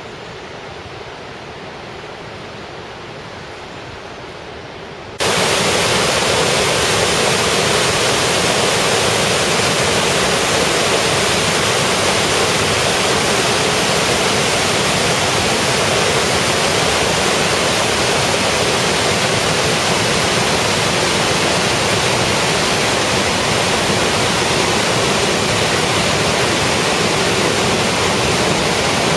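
Water released through a dam's sluice gate, rushing and churning white over rocks below in a steady roar of noise. It is fainter for the first five seconds, then jumps suddenly louder and stays level.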